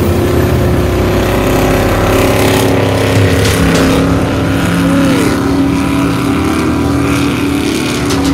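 Classic powerboat engine running steadily, its deep multi-tone drone dropping slightly in pitch about halfway through.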